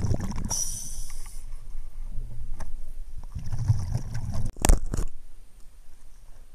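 Muffled underwater sound picked up by a camera in its waterproof housing as it is handled close to the lake bed: low rumbling and bumping, a short hiss about half a second in, and a sharp knock, the loudest sound, near the five-second mark.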